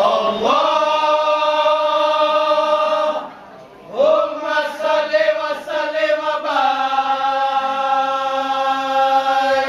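A group of men chanting in unison in long, drawn-out sung notes. The chant breaks off about three seconds in and starts again a second later.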